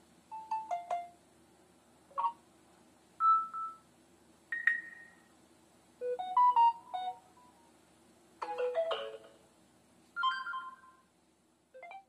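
Samsung Galaxy A20e's speaker playing previews of its preloaded notification tones one after another, each tone selected in turn: about eight short electronic chimes and blips, each a few quick notes, separated by short pauses.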